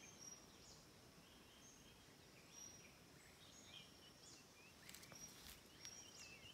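Near silence: faint, scattered bird chirps and short whistles, with a few faint clicks about five seconds in.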